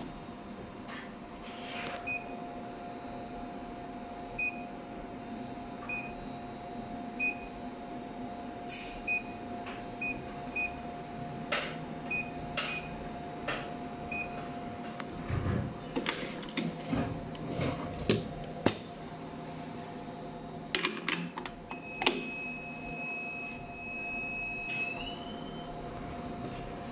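Short beeps of the RBTX-400T machine's touchscreen control panel as its keys are pressed, about ten in the first fifteen seconds, over a steady machine hum. Clicks and knocks follow, then one long beep of about three seconds that rises a little in pitch just before it stops.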